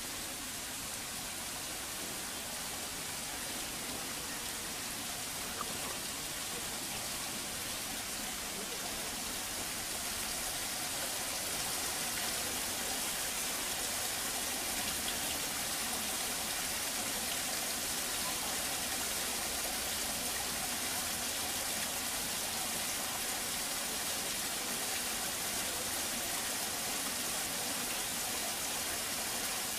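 Steady rush of running water, an even hiss that grows slightly louder about ten seconds in.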